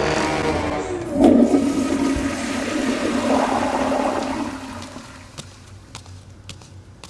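Toilet flushing: a loud rush of water that surges about a second in, swirls and gurgles, then fades away about five seconds in.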